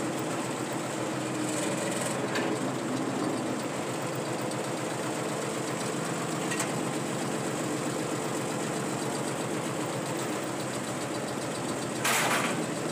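Tractor engine running steadily at low revs while towing a loaded earth scoop. Near the end comes a short rush of noise, about half a second long.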